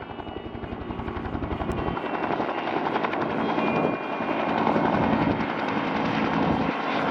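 Helicopter rotor blades beating in a rapid, steady pulse, fading in over the first couple of seconds and then holding.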